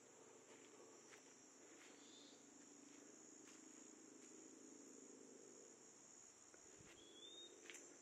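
Faint, steady high-pitched drone of insects in woodland, with soft footsteps on a leaf-covered dirt trail about every second. A short rising chirp sounds twice, about two seconds in and near the end.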